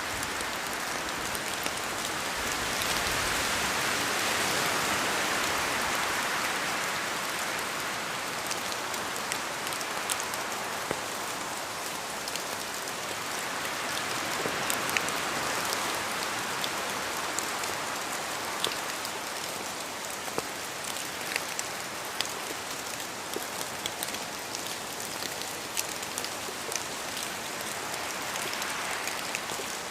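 Steady rain falling in a forest, with larger drops from the trees landing as scattered sharp ticks. The hiss swells twice for a few seconds, about three and about thirteen seconds in, as wind moves through the trees.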